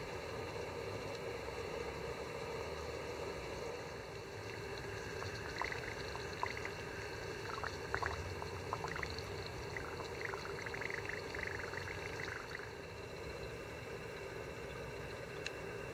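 Leather soaking in a metal pan of water, fizzing and bubbling as air escapes from it, with small crackles and light clicks of metal tweezers against the pan through the middle, over a steady low hiss. The bubbling is the sign the leather is still soaking through; it is fully soaked when the bubbles stop.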